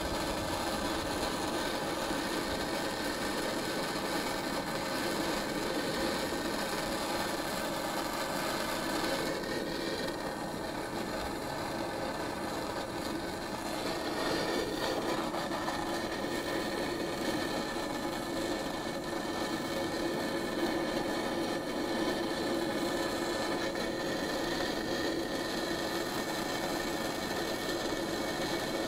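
Handheld gas torch burning with a gentle flame, a steady hiss, as it warms the hub of a motorcycle's rear wheel.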